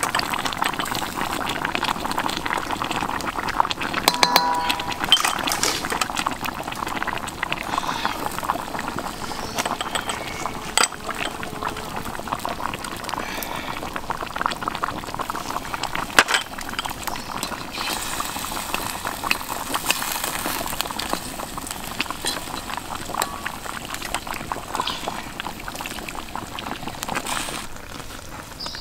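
Sauce bubbling and popping steadily as a whole chicken simmers in a steel wok over a wood fire. About halfway through, liquid is poured in from a cup.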